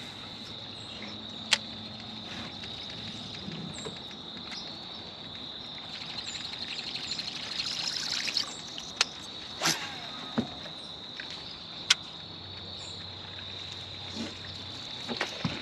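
Steady, high-pitched insect chorus, shrilling without a break, with a few sharp clicks now and then.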